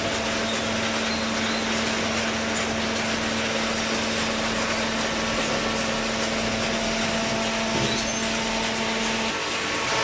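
Hydraulic cardboard baler running: steady mechanical noise with a steady hum that stops about nine seconds in.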